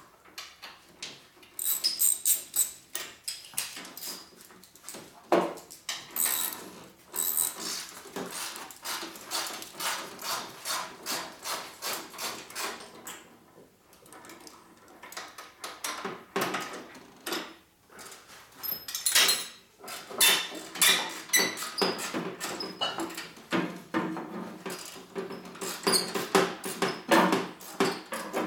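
Hand ratchet wrench clicking in quick runs of ticks as bolts on a motorcycle's front end are turned, stopping and starting every few seconds.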